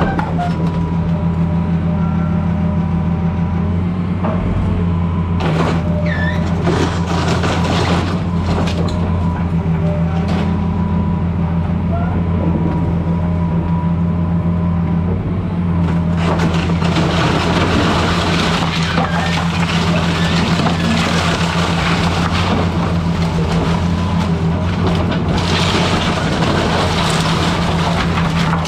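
A 20-tonne-class excavator's diesel engine running steadily under work during house demolition, with a few sharp knocks and cracks in the first half. From about halfway a broad crunching noise joins it.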